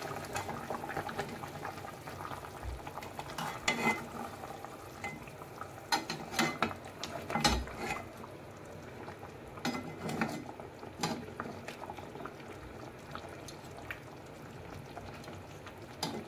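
Whole marinated chicken sizzling and bubbling in its gravy in a kadhai, with scattered clacks and scrapes of a metal slotted spoon and tongs against the pan as the chicken is turned over onto its other side.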